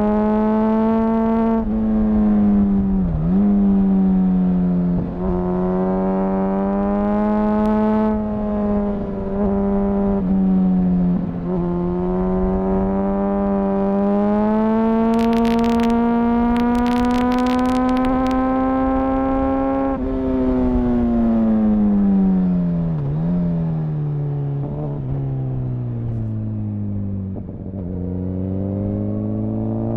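Honda CBR1000RR Fireblade's inline-four engine and exhaust under way, heard onboard. Its note holds mostly steady with brief sharp dips at gear changes, climbs slowly through the middle, then drops away as the bike slows before rising again near the end. A short run of sharp clicks comes around the middle.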